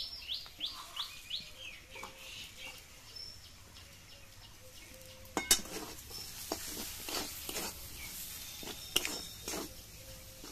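Metal spatula scraping and knocking against a metal karai (wok) as a thick mashed green-pea filling is stirred and pressed, in repeated strokes about two a second from about halfway through, the loudest knocks about halfway and near the end. A bird chirps several times near the start.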